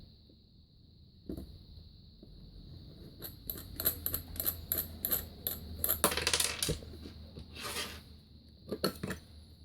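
Light clicks, about three or four a second, and a couple of short scrapes from hand work on a drip coffee maker's internal parts as the bracket holding the water well is taken off.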